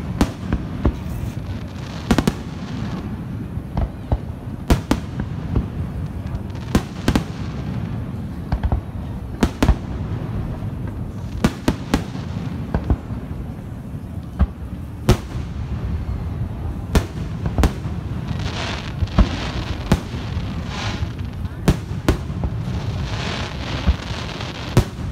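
Aerial fireworks shells bursting in quick succession, sharp booms roughly once a second over a steady low rumble.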